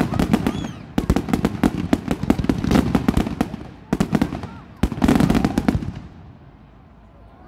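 Fireworks display: a fanned barrage of comets fired from the ground, going off in rapid bangs and crackles. The barrage breaks briefly about one and four seconds in, then dies away over the last second or two.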